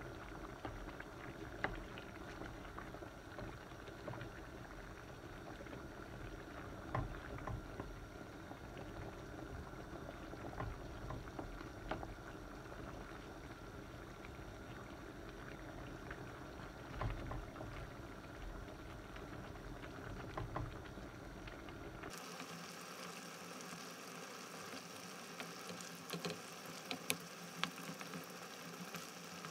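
Pork pochero stew simmering in a pan, a steady bubbling broth, with a few light knocks of a wooden spoon against the pan. About two-thirds through, the sound shifts abruptly to a crisper, higher crackling sizzle.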